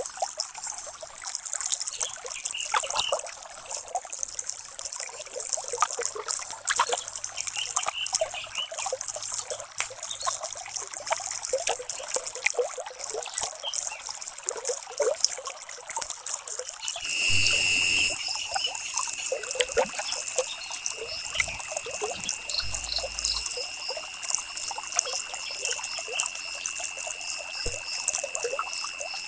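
Water trickling steadily, a dense crackling babble. A faint, high, steady tone comes in a little past halfway and holds.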